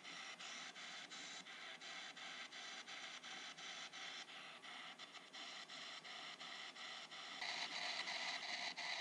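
P-SB7 ghost box sweep radio scanning the AM band: radio static hiss chopped into a rapid rhythm of clicks, about five a second, as it jumps from station to station. It gets louder about seven and a half seconds in.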